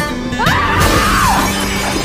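Mirror glass shattering, a sudden crash about half a second in with breaking glass ringing on for about a second, over a slow acoustic-guitar song.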